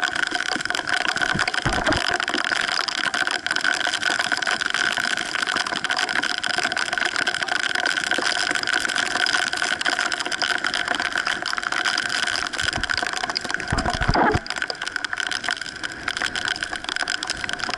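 Steady rushing wind-and-water noise from a small sailing dinghy under way in strong wind, with a few low thumps of wind buffeting the microphone about two seconds in and again about fourteen seconds in.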